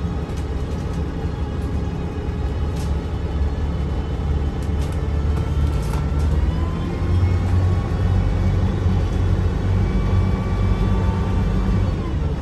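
Mercedes-Benz O405NH bus running, a deep diesel rumble with the whine of its Voith automatic gearbox. The rumble grows louder about halfway through and the whine slowly rises in pitch.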